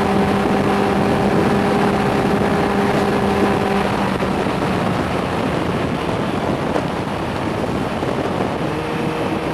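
Suzuki GSR 600's inline-four engine, restricted to 25 kW, running at steady revs with wind rushing over the microphone. About four seconds in the engine note fades under the wind noise, and a steady, lower engine note comes back near the end.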